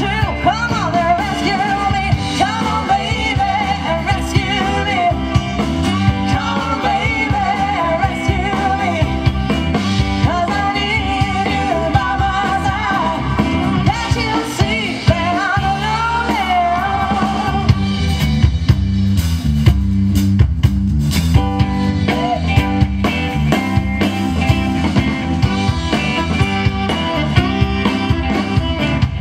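Live band playing with a woman singing over electric guitar, her voice wavering in vibrato on held notes. Well past halfway her voice drops out and the band plays on without her.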